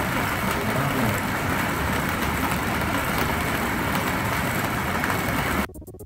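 Fairground ball-game machine running steadily while a stream of plastic balls spills and clatters onto its board. The noise cuts off suddenly near the end.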